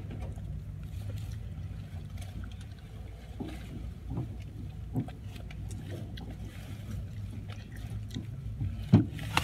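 Steady low rumble of a car idling, heard from inside the cabin, with faint clicks and knocks as small plastic lip balm tubes are handled, and one sharper knock about nine seconds in.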